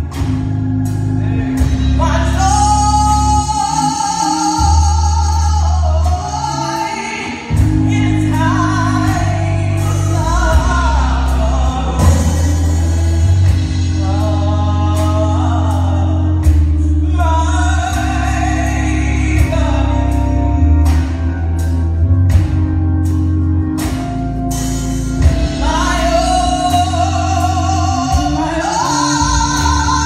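Live gospel song: a woman sings the lead with male and female backing vocals, over sustained chords on a Hammond B3 organ.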